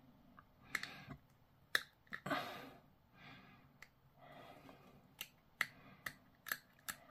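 Small sharp clicks and short scraping strokes of a metal hobby tool worked against a small plastic miniature part, with a quick run of clicks near the end.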